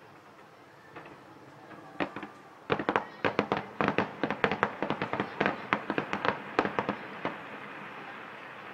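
Aerial fireworks shells bursting: a couple of single bangs, then from about three seconds in a rapid volley of bangs lasting four to five seconds, after which it settles into a fainter hiss.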